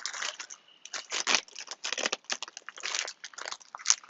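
Crinkling and rustling with irregular clicks, as plastic parts or packaging are handled, and one sharp click near the end.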